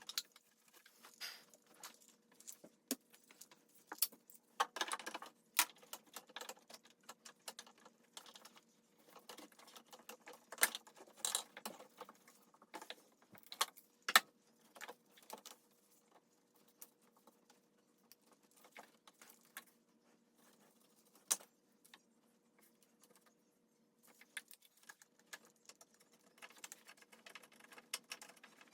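Faint, irregular metallic clicks and clinks of hand tools and engine parts being handled, with a quieter stretch in the middle and busier clinking near the end.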